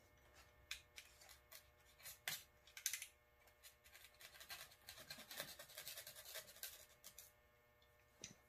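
Faint scratching of a knife blade cutting into brittle foam, with a few sharp clicks in the first three seconds, then a longer stretch of steady scraping.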